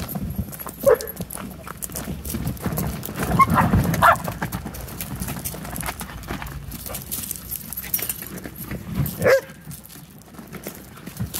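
Puppies playing on gravel and dry leaves: a steady patter of paws scrabbling and crunching. A few short puppy vocalizations come about a second in, around four seconds in, and near the end.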